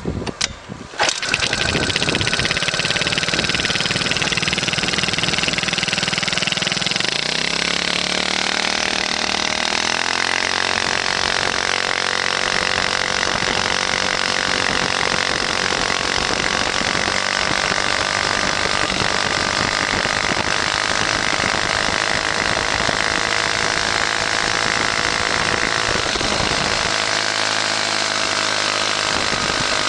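Yamaha ChoiNori 50cc four-stroke single-cylinder scooter engine with a Takimoto Works tw1 aftermarket muffler, catching after a couple of short bursts about a second in. It then runs steadily, rising in pitch a few seconds later as it picks up speed, holds, and eases off near the end.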